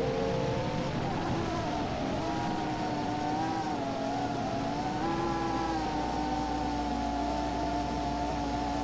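A 3-inch FPV quadcopter's brushless motors and propellers whining steadily, dropping in pitch about a second or two in and then wavering slightly, as the quad descends under GPS Rescue.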